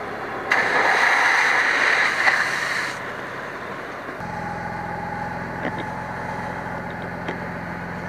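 A loud hissing rush of air and water from a fire engine's pump discharge for about two and a half seconds, cutting off suddenly. About four seconds in, the fire pump's engine settles into a steady, louder hum as the pump is run up to supply the line.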